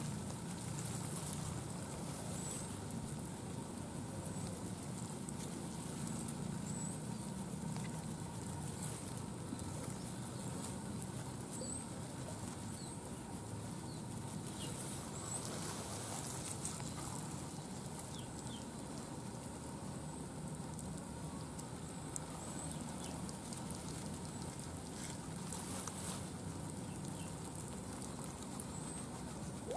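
Light pattering and rustling of fingers in wet mud, water and grass at the mouth of an eel hole in a rice paddy, over a steady faint background, with faint high chirps every few seconds.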